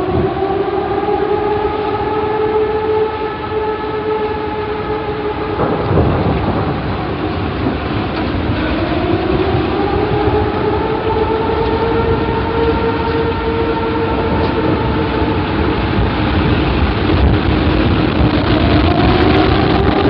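Outdoor tornado warning siren wailing in slow cycles, its pitch rising, holding and sliding down, over a heavy rumbling roar that grows louder toward the end.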